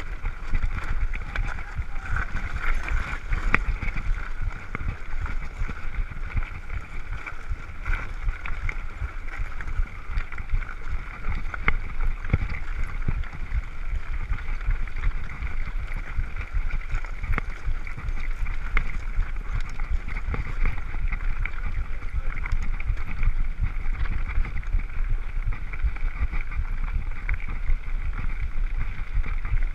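Mountain bike rolling over a rough gravel track, recorded from the rider's own bike: wind buffeting the microphone with a steady low rumble, broken by frequent short knocks and rattles from the bumps.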